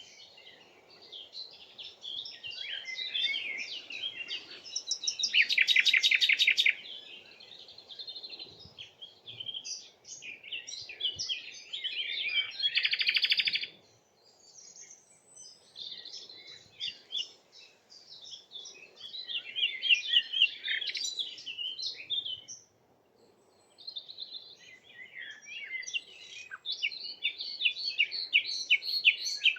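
Songbirds singing, a busy run of chirps and warbled phrases with short gaps, including two loud rapid trills, one about five seconds in and one about twelve seconds in.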